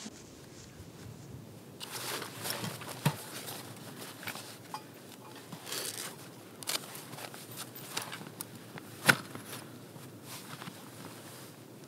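Rustling of a winter suit and a backpack with a folding seat as it is taken off and set down on snow, with scattered clicks and crunches; one sharp knock about nine seconds in.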